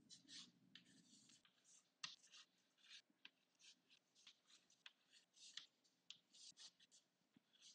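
Faint, irregular scratchy strokes of a pen or marker drawing a diagram, a dozen or so short strokes.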